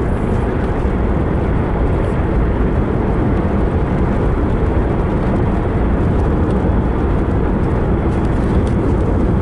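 Car driving along a road: steady engine and tyre noise, strongest in the low rumble.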